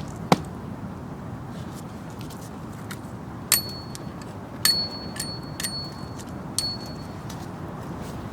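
Two chopping blows on wood at the very start, then about five light metal-on-metal taps spaced roughly a second apart, each leaving a short high ring.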